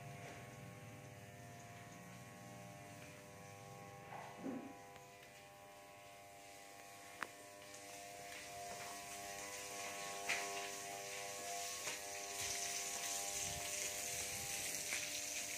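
A steady electrical buzz with several fixed tones, with a single sharp click about seven seconds in. Near the end a high hiss comes in.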